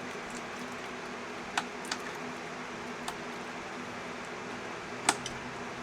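Ignition coil pack connectors on a Pentastar V6 being unclipped by hand: a few sharp plastic clicks, the loudest about five seconds in, over a steady background hum.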